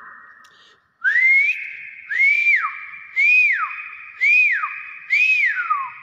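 Nias hill myna whistling: five loud, clear whistles, each rising and then sliding down, about one a second, starting about a second in, each ringing on briefly after it.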